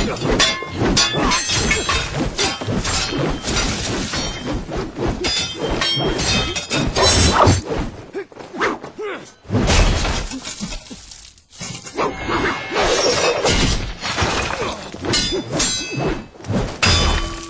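Fight-scene sound of metal blades clashing and heavy hits in rapid succession, a polearm against a sword, with a couple of short lulls past the middle.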